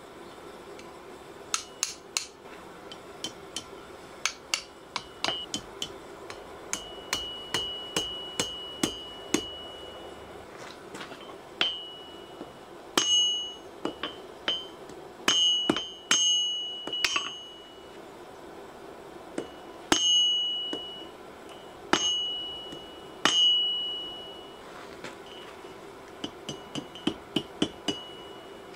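Hand hammer striking a red-hot chain link on the horn of a steel anvil while forging a chain: runs of quick blows, each with a bright ring from the anvil, the hardest strokes in the middle ringing on longest.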